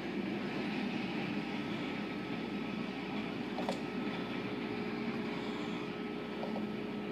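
Automatic tunnel car wash heard from inside the car: a steady rush of water spraying onto the hood and swishing cloth strips, over a faint steady machine hum, with a couple of light ticks partway through.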